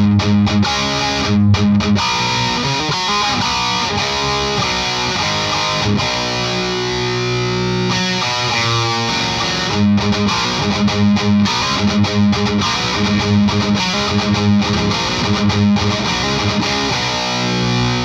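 Electric guitar played through a Klon-style overdrive pedal (Parks Custom Pedals Dagon OD) into a Marshall JCM900 amp: distorted riffing. Short, punchy low chugs open the passage and come back about ten seconds in. Between them are held, ringing notes and a falling run.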